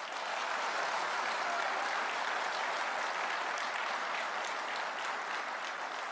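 Large seated audience applauding, starting suddenly and holding steady.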